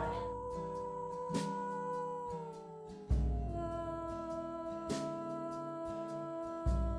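Background music: long held notes that slide down in pitch, over a deep bass note that comes in about three seconds in and again near the end.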